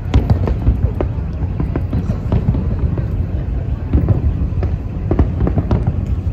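Fireworks display bursting: a rapid, irregular string of cracks and pops over a continuous low rumble.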